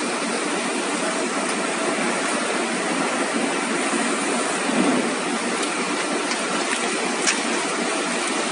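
Veneer glue spreader's rollers and the surrounding plywood mill machinery running with a steady mechanical noise, with a brief louder swell about five seconds in and a sharp click a couple of seconds later.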